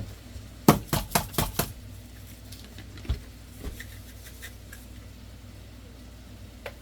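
A quick run of about six sharp clicks and taps as a seasoning shaker is shaken and tapped over the pot, then a few scattered knocks, over a low steady hum.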